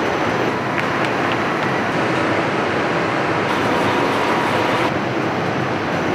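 Steady running noise of a paper winding machine as a web of brown paper unwinds off a large roll and runs over steel rollers, with a faint whine joining for about a second near the middle.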